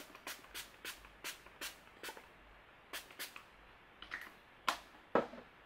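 Pump setting spray (e.l.f. Makeup Mist & Set) misted onto a face in short, quick sprays: about a dozen in the first three and a half seconds, then three more spaced out, the last two the loudest.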